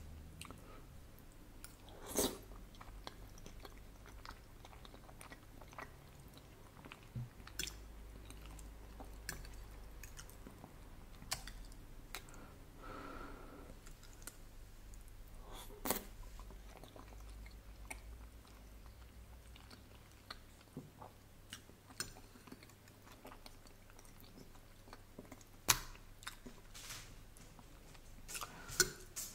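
Close-miked chewing of soft ravioli in tomato sauce, wet mouth sounds with scattered sharp clicks throughout. The loudest clicks come about two seconds in, in the middle, and near the end.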